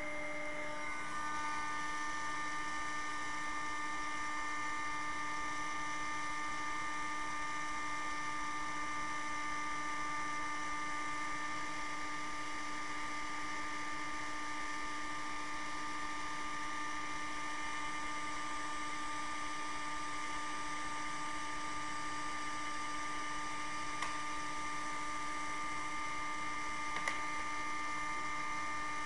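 Electric heat gun running steadily, its fan motor giving a constant hum over the rush of blown air as it heats a circuit board's lead-tin solder. Two faint clicks near the end.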